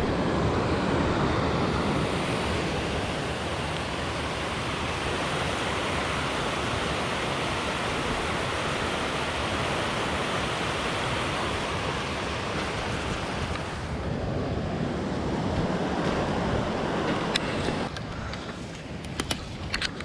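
Mountain stream rushing over stones, a loud steady rush of water. It falls quieter near the end, where a few sharp clicks come through.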